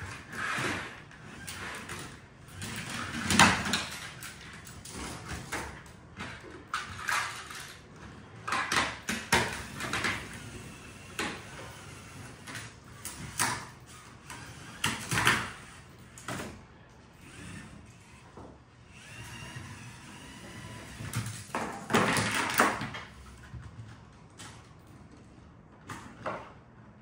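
A LEGO competition robot running a FIRST LEGO League table run, its plastic attachments and the mission models clacking, sliding and knocking in an irregular series of clunks and scrapes. The loudest knocks come about three and a half seconds in, around fifteen seconds and around twenty-two seconds.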